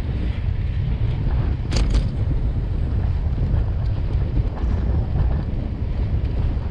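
Wind buffeting the microphone of a camera on a moving bicycle: a steady low rumble, with two sharp clicks about two seconds in.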